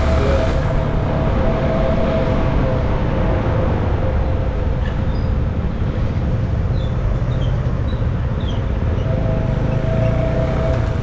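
CFMoto NK 250 single-cylinder motorcycle running steadily while being ridden, with loud, even road and wind noise. A steady tone is heard at the start, fades out about a second in, and returns near the end.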